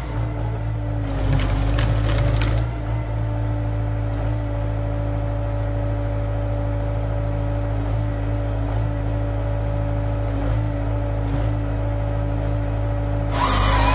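Tractor engine and hydraulics driving a Hypro 755 tractor-mounted wood processor, running steadily under load with a constant low hum and a steady whine. A rougher, noisier stretch comes about one to two and a half seconds in.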